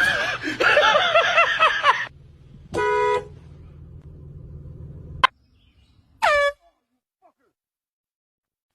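Air horn blasting in two short bursts, a few seconds apart, after about two seconds of a person's wavering yell at the start.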